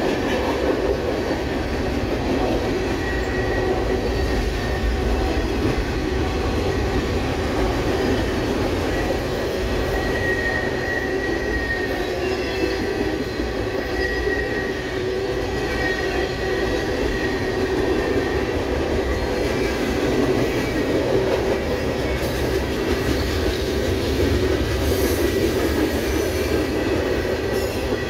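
Freight cars of a CSX mixed manifest train rolling past at a steady pace: a continuous loud rumble of steel wheels on rail, with a thin high wheel squeal coming and going.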